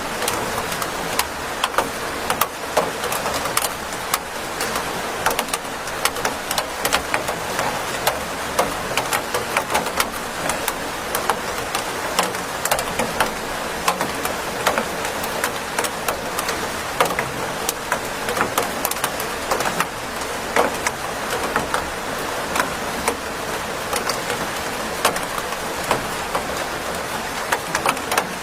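Steady rain, with many loud drops ticking sharply at irregular moments over a constant hiss of rainfall.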